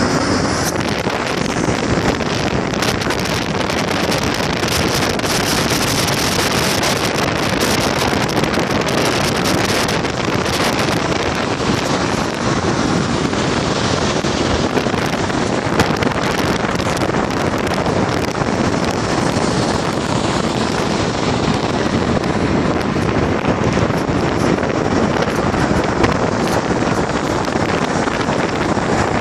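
Steady road noise and wind rushing past a moving car, with wind buffeting the phone's microphone in the first ten seconds or so.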